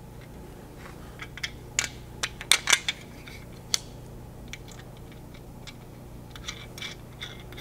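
Light metallic clicks and clinks of small button-head bolts and aluminum rail pieces being handled and hand-threaded together, in scattered clusters, over a steady low hum.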